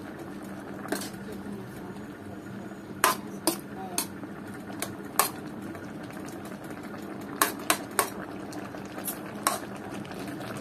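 Metal spatula stirring pork belly and greens in broth in an aluminium wok, clinking sharply against the pan about ten times at irregular intervals. A steady background hum runs underneath.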